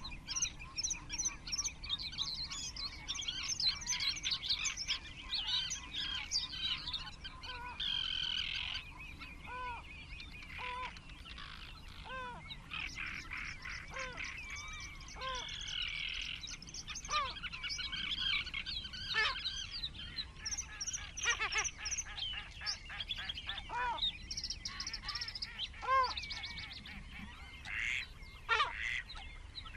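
Wetland bird chorus: many small birds singing and chirping together, with short lower calls every second or two.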